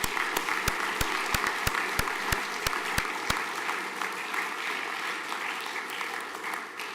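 Audience applause, with a loud, even clap about three times a second standing out for the first three seconds or so; the applause dies down near the end.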